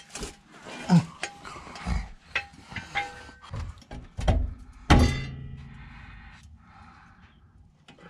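Scuffs, knocks and light clanks of someone crawling under a jacked-up car on a concrete garage floor, with one loud thunk about five seconds in.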